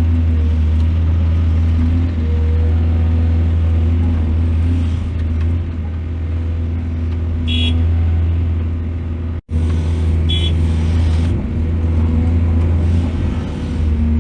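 Heavy excavator's diesel engine running steadily with a deep drone. It cuts out for an instant about nine and a half seconds in, and there are two short high squeaks nearby.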